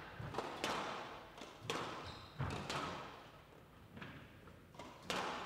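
Squash rally: the ball cracks off rackets and the court walls about every second, each hit trailing a ringing echo in the hall.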